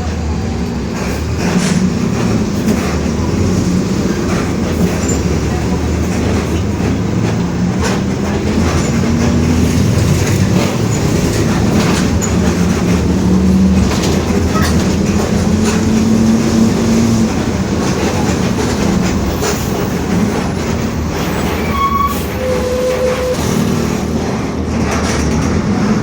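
Mercedes-Benz OF-1721 BlueTec 5 city bus under way, heard from inside. Under the engine and road noise a droning whine rises and falls in pitch with speed: the differential growling. A short beep sounds near the end.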